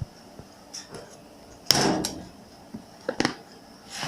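A sharp knock a little under two seconds in, then a few lighter clicks and taps a little after three seconds: objects being handled and set down.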